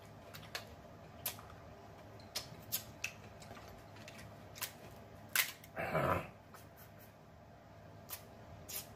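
Snow crab leg shells and a fork clicking and cracking in a string of sharp, scattered clicks as meat is picked out of the shell, the loudest crack about five seconds in. Just after it, a short hummed vocal sound from the eater.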